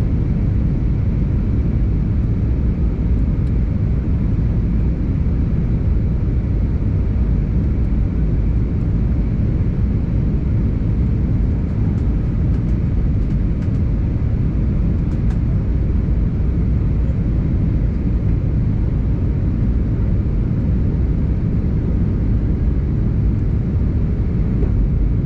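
Steady low roar of an Airbus A320neo in flight, heard inside the passenger cabin: engine and airflow noise without change.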